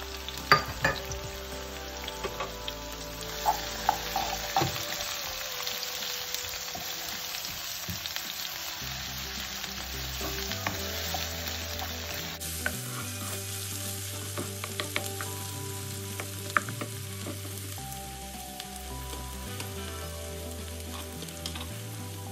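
Sliced onions, curry leaves and green chillies sizzling in hot oil in a non-stick frying pan, stirred with a spatula. Sharp taps and scrapes of the spatula on the pan come now and then, loudest about half a second in.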